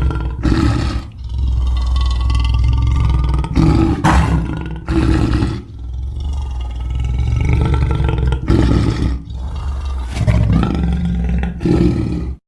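Deep, bass-heavy monster roar sound effect for a Hulk-like character, held in several long stretches with brief breaks between them.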